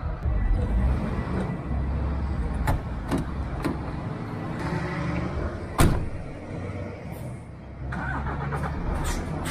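Semi-truck's diesel engine running, with several sharp knocks and clicks over it, the loudest about six seconds in.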